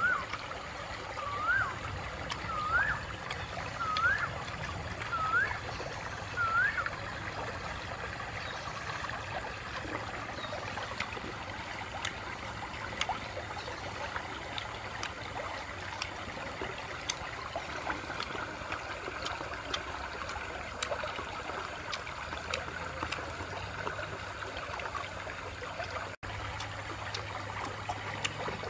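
Shallow stream running over stones, a steady trickling wash. In the first seven seconds a short rising whistled call repeats six times, a little over a second apart.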